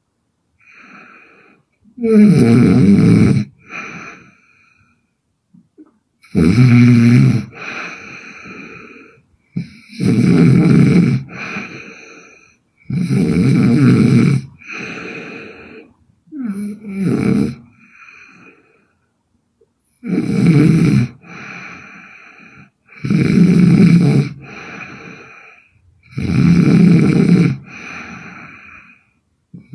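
A young woman snoring hard. There are seven loud snores about a second long, coming every three to four seconds, each followed by a softer, shorter breath sound, with a longer lull around the middle.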